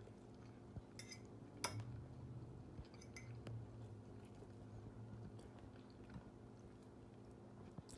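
Faint chewing of a mouthful of food, with a few light clicks of cutlery against a plate.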